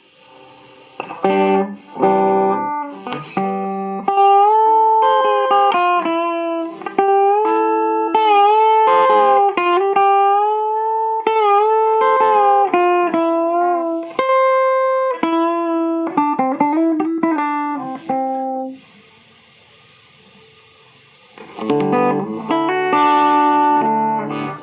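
Electric guitar played through a Deviser TG-30 practice amplifier. A few chords open it, then a long single-note lead line with sustained notes, bends and vibrato, a pause of about three seconds, and more chords near the end.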